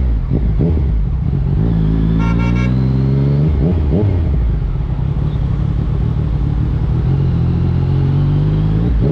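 2021 Yamaha MT-09's 890 cc inline-three with an Akrapovic exhaust, accelerating under load. Its pitch climbs, dips about three and a half seconds in, then climbs again until another dip near the end. A short horn toot sounds about two seconds in.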